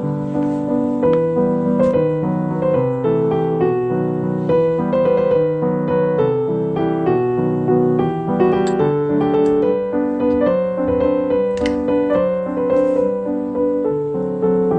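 Background piano music: a melody of notes following one after another.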